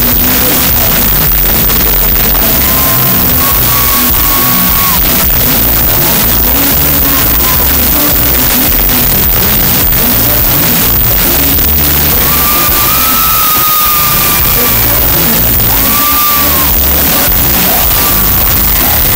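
Loud live pop band music, with a male lead singer's voice and heavy bass over the band.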